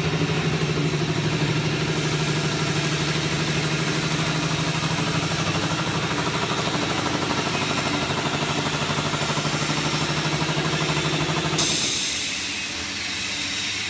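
Twin-shaft scrap metal shredder running with a steady, loud hum. Near the end the hum cuts off suddenly and a steady high hiss takes over.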